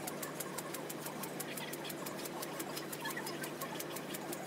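Micro quadcopter with a springy telescopic leg hopping continuously, sped up fourfold: a fast, even clatter of about eight ticks a second over a steady motor hum.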